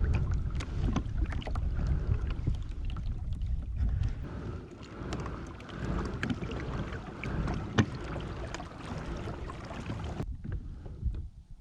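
Wind rumbling on the microphone aboard a fishing kayak, with scattered small clicks and knocks of gear and hull. The rumble drops away suddenly near the end.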